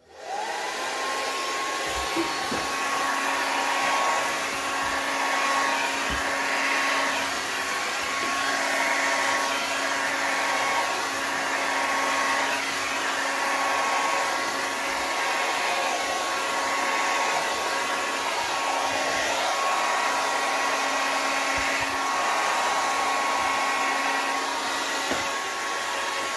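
Hand-held hair dryer switched on and running steadily, its motor whine rising to a steady pitch in the first second, blowing air across wet poured acrylic paint to push it over the surface. A few small knocks from handling sound now and then.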